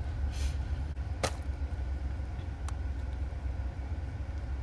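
Steady low rumble of a car, heard from inside the cabin, with one sharp click about a second in.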